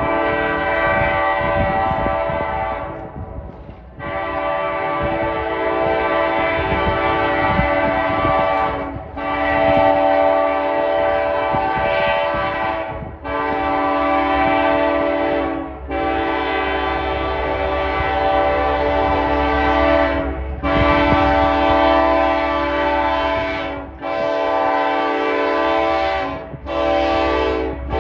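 Ferromex diesel locomotive's air horn sounding a chord in about eight long blasts, each held for a few seconds with short breaks between, over a low steady rumble.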